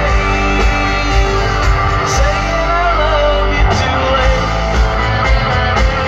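Live country band playing loud amplified music with a singer, heard from the crowd, with a heavy bass.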